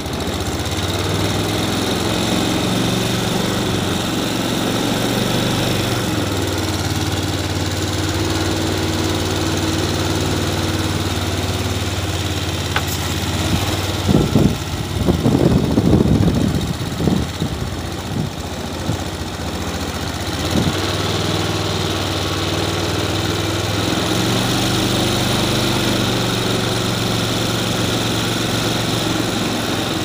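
Small petrol engine of a narrow long-tail-style boat running steadily under way, pushing the boat through the water. About halfway through there are a few seconds of louder, uneven noise over the engine.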